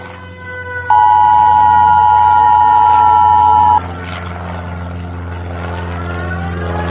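Emergency Alert System attention signal: a loud steady two-note electronic tone just under 1 kHz that starts about a second in and cuts off after about three seconds. It is followed by a quieter noisy bed with slowly gliding, siren-like tones over a steady low hum.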